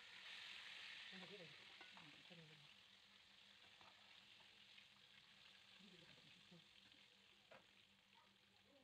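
Floured sardines frying in hot oil in a pan: a faint, steady sizzle, strongest in the first couple of seconds and then slowly fading. A few light clicks come as a utensil turns the fish against the pan.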